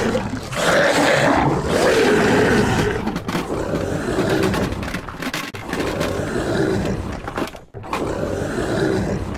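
A loud monster-style roaring voice for a Hulk figure: a run of drawn-out roars and growls, one after another with short breaks between them.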